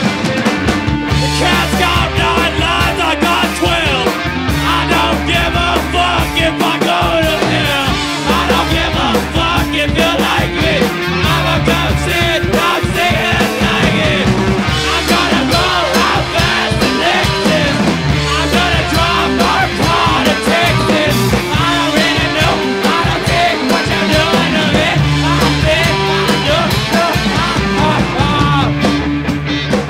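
Live punk rock band playing loudly: electric guitar, bass guitar and drum kit.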